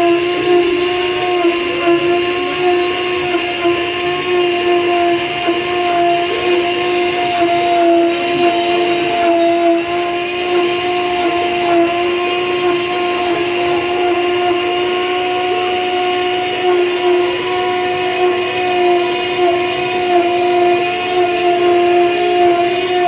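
DIY CNC router with its newly fitted spindle motor running at a steady high speed, a constant whine with no change in pitch.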